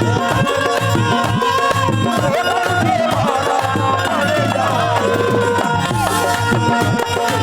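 Instrumental music: a tabla rhythm under a winding melodic line and a steady low drone, with no singing.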